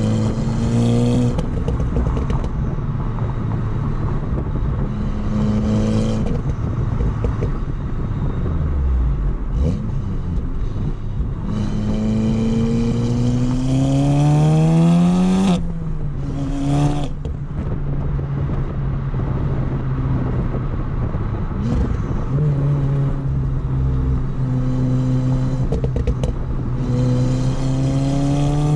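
2016 VW Golf R's turbocharged 2.0-litre four-cylinder, with a catless downpipe on the stock cat-back exhaust, pulling through the gears. The pitch climbs and drops sharply at upshifts about six and fifteen seconds in, holds steady for a while, then climbs again near the end. A rushing hiss rides over the harder pulls.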